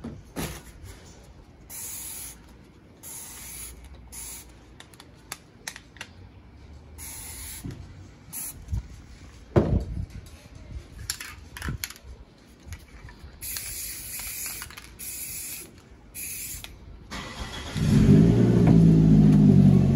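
A tumbler being sprayed in a series of short hissing bursts. Near the end a motor engine starts running with a loud, steady low hum.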